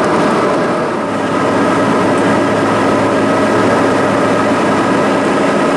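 Steady cabin noise of an Embraer E175 airliner in flight: the rush of air along the fuselage mixed with the drone of its GE CF34 turbofan engines. A steady low hum joins in about a second in.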